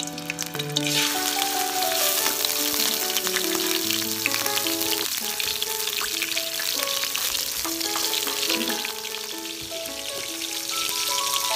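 Small skewered squid deep-frying in hot oil in a wok, a steady crackling sizzle that grows louder about a second in. Background music with held melodic notes plays over it.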